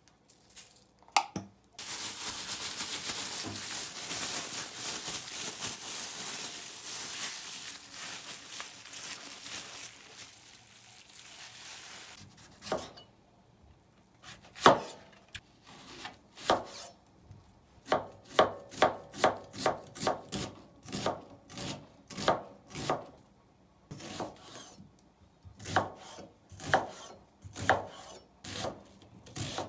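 A steady rushing hiss for roughly the first ten seconds, fading out. Then a kitchen knife chopping on a cutting board: sharp knocks in a run of about two a second in the middle, more scattered strokes near the end.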